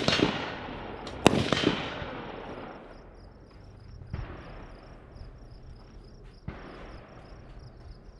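Gunshots: a sharp shot right at the start and another about a second later, each trailing off in a long rolling echo, then two fainter single cracks later on.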